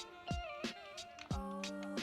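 Background music with a drum beat, held notes and a bending guitar-like lead melody.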